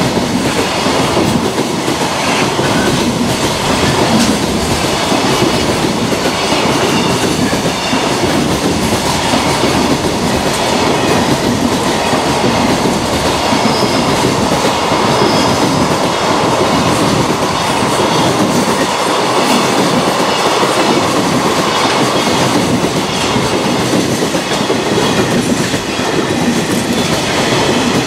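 Freight train of container flat wagons, Koki 106 and Koki 107 types among them, rolling past at close range, a loud steady rumble with the wheels clattering over the rail joints.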